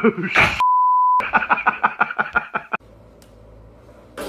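A censor bleep: a single steady pure tone lasting about half a second, a little under a second in, with the original sound muted under it. It is followed by a couple of seconds of rapid, evenly spaced pulses, about six a second, which give way to a faint low hum.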